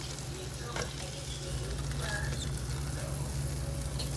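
Egg-dipped bread frying in a pan with a steady sizzle, and a metal utensil clicking and scraping against the pan a couple of times as the slices are lifted. A steady low hum runs underneath.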